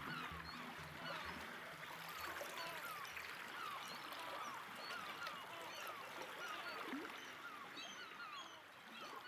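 Faint nature ambience: many short chirping animal calls repeating over a soft, steady hiss, while the music's low pulsing fades out in the first second or so.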